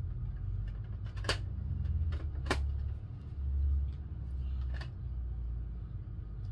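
Plastic toy blaster parts being handled and fitted together: a few sharp clicks and knocks over a low rumble.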